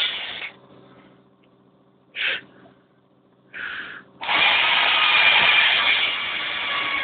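Electric drill running, being used to open a wine bottle's cork. It stops about half a second in, gives two short bursts at about two and three and a half seconds, then runs steadily again from about four seconds in.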